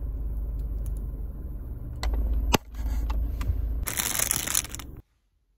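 A low steady rumble inside a car, with a sharp click about two and a half seconds in, then the plastic bag of a snack crinkling in the hand for about a second. The sound cuts off abruptly near the end.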